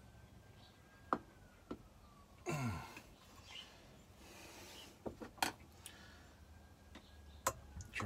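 Faint, sparse clicks and taps of a screwdriver and case screws on a chainsaw crankcase as the screws are worked in, with a brief falling vocal sound a little before three seconds.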